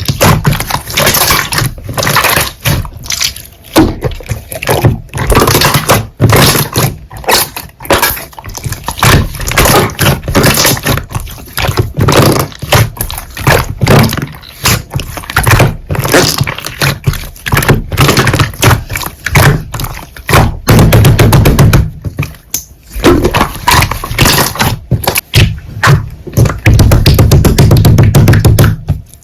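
Hands squeezing, pressing and stretching slime, making a dense run of sticky clicks and pops, with heavier low squelching pressing about two-thirds of the way in and again near the end.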